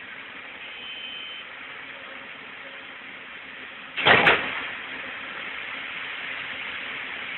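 Excavator diesel engine running steadily under a hiss of background noise. About four seconds in, a sudden loud burst of noise fades away within about half a second.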